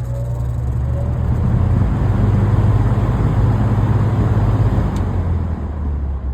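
Vintage Air King PL20E box fan's GE motor starting up close to the microphone: a loud low hum with the rush of air from its metal blades building up over the first couple of seconds. About five seconds in the hum drops lower and the level begins to fall.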